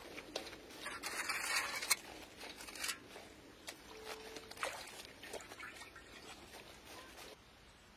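Clothes being hand-washed in a metal basin of soapy water: wet fabric sloshing and squelching as it is worked by hand, loudest about a second in, then a plastic scrub brush scrubbing the wet cloth in short uneven strokes.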